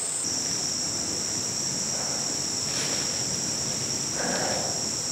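Steady high-pitched drone of insects, dropping slightly in pitch just after the start.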